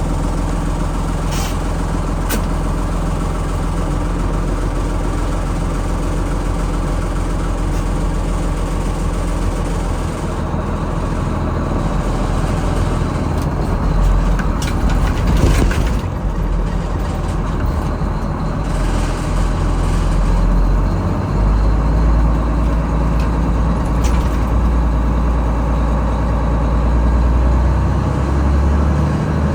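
Engine of a GMC cab-over truck running with a steady low drone. Its low end grows louder a little past two-thirds of the way in, and a few short sharp sounds cut through it.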